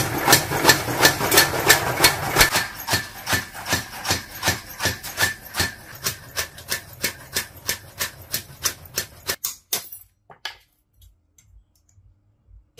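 Motor-driven mechanical power hammer striking a steel knife blade in a steady rhythm of about three blows a second. The blows grow fainter and stop about nine seconds in, followed by near silence with a few faint taps.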